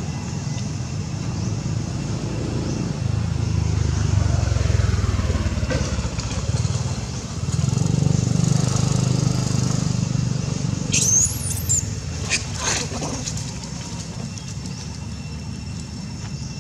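Low rumble of a passing motor vehicle that swells and fades. About eleven to thirteen seconds in come a few short high-pitched squeals from a baby long-tailed macaque.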